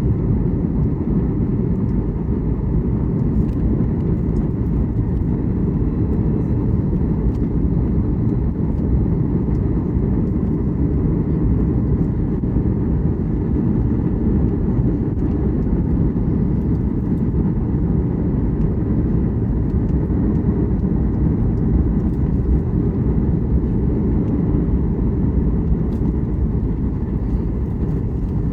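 Steady low rumble of cabin noise inside a Boeing 737 MAX 8 airliner: engine and airflow noise as the jet descends toward landing.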